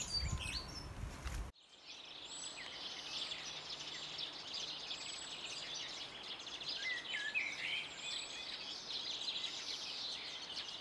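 A chorus of many small songbirds chirping and whistling over a soft outdoor hiss. About a second and a half in, the sound cuts abruptly to a quieter bed of the same kind of birdsong.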